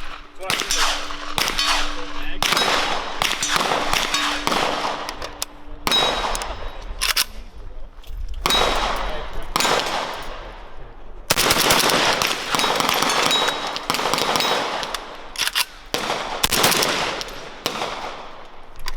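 Gunfire at a shooting range: many sharp shots from several firearms, each echoing away, coming in clusters and overlapping most densely in the second half.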